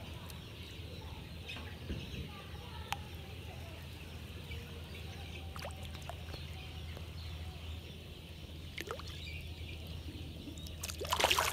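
Hooked fish splashing and thrashing at the surface of a weedy pond, with one short loud splash near the end over a steady low background rumble.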